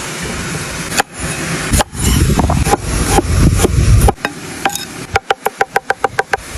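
Sharp knocks and clatter, ending in a quick, even run of about eight taps a second.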